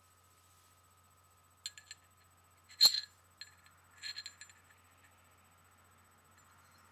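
Several light clicks and clinks of small hard objects being handled, the loudest a sharp clink about three seconds in.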